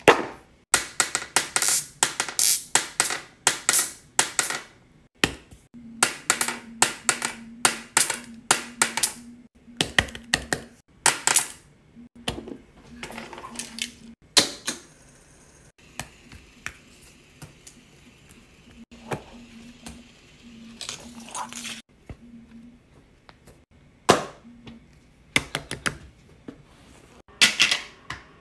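A run of sharp clicks and taps in quick clusters, several a second, with a few pauses and a faint hum underneath.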